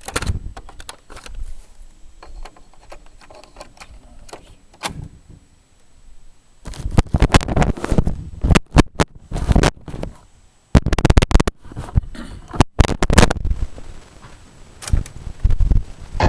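Irregular clicks, knocks and crackling handling noise from working a cassette boombox's controls, loudest and densest in the middle stretch, with the sound cutting out completely for brief moments.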